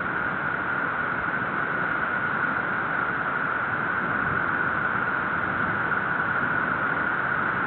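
A steady, even hiss with no separate events, strongest in a narrow mid-pitched band.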